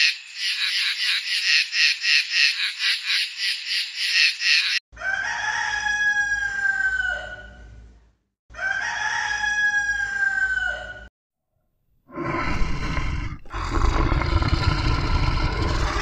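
A frog calling in rapid even pulses, about three or four a second; then a rooster crowing twice, each crow one long call falling in pitch. From about twelve seconds in, a deep rough growl from a tiger.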